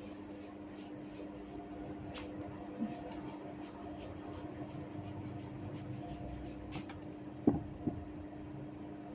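Hair cracking during a head massage: tufts of hair tugged at the scalp, giving a few faint sharp cracks and two louder short pops near the end, over a steady low hum.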